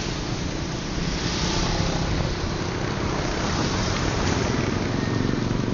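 Steady rush of wind over the microphone mixed with road traffic noise, an even rumbling hiss with no distinct events.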